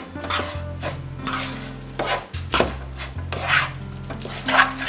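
Wooden spoon stirring and tossing spaghetti in a nonstick frying pan: repeated scraping strokes against the pan, irregular, a couple a second.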